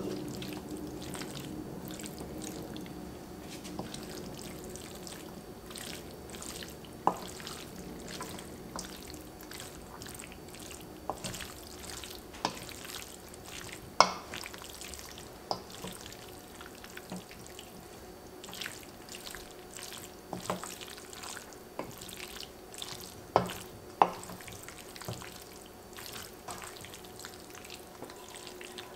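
Wooden spoon stirring a wet chorizo and red pepper filling in a stainless steel bowl: soft squelching, broken every second or two by sharp knocks of the spoon against the metal bowl, several of them louder.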